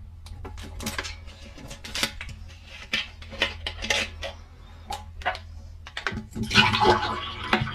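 Irregular taps, clicks and scraping of a hard digging tool against a plaster dinosaur egg, growing busier and louder near the end.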